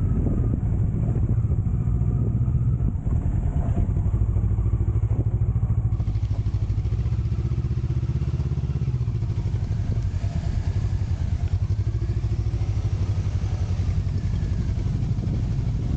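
Motorcycle engine running steadily at low revs, its pitch rising and falling slightly.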